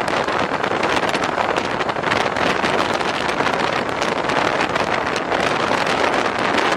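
Wind rushing over the microphone: a steady, loud rushing noise with no tone or rhythm in it.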